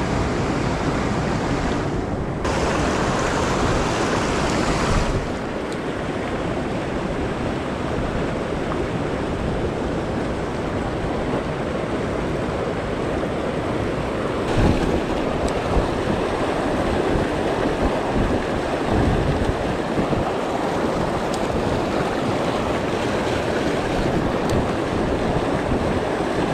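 Fast mountain river rushing over rocks in white-water rapids close by: a steady, loud rush of water.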